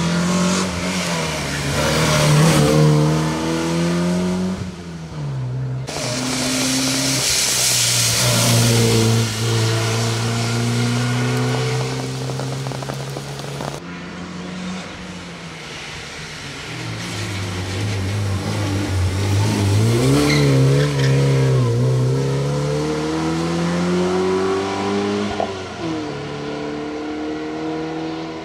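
Porsche 944 S2 race car's 3.0-litre four-cylinder engine driven hard, its pitch climbing as it accelerates and dropping back at gear changes and corners, several times over. The sound breaks off abruptly twice as the view switches.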